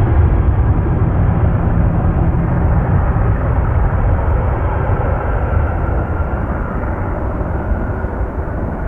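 Boeing 747-400 freighter's four jet engines at takeoff power, a loud, steady, deep rumble that slowly eases off near the end as the jet climbs away.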